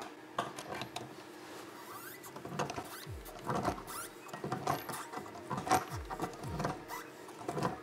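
Faint, scattered short squeaks and clicks as the back nut of a basin's pop-up waste is tightened by hand, a screwdriver holding the waste still from above.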